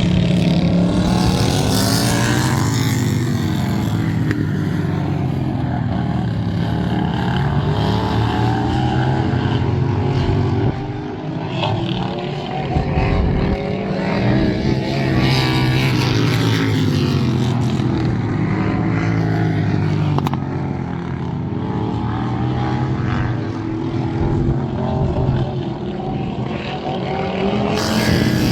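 Racing lawn tractor engines running hard, more than one at once, their pitch rising and falling over and over as they rev up and back off.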